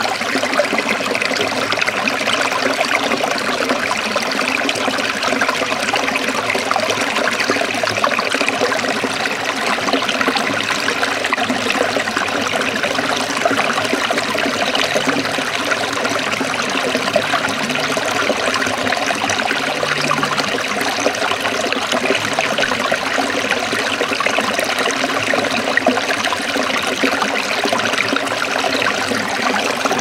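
Small stream running over rocks in little cascades and splashing into a shallow pool: a steady, even babble of water.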